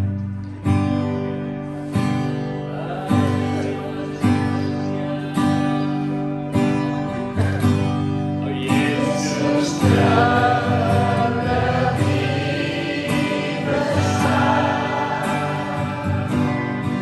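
Worship band playing a Christian song: acoustic guitars strummed in slow chords, roughly one stroke a second, over low bass notes. Several voices come in singing together about halfway through.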